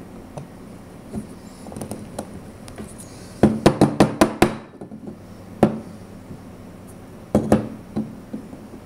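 Hollow two-piece plastic ball knocking and clattering against a desk top as a hand rolls and rocks it. Light scattered taps lead into a quick run of about six sharp knocks a few seconds in. A single knock follows, then two or three more near the end.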